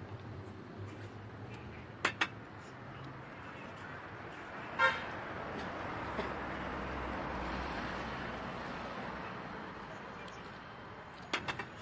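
Street traffic: a short vehicle horn toot about five seconds in, then a vehicle passing, its noise swelling and fading. A few sharp clicks come about two seconds in and again near the end.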